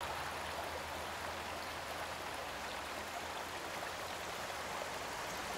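Steady rush of a river running over whitewater rapids.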